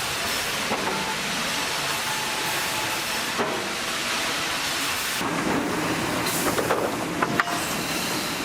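Industrial sawmill machinery running, a steady mechanical din with a hiss. The sound shifts about five seconds in, and a few sharp wooden knocks follow near the end.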